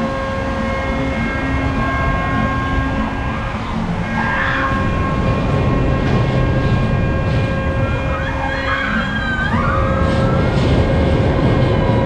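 Amusement-park ride running: a steady mechanical rumble with a constant whine, and riders screaming about four seconds in and again near nine seconds.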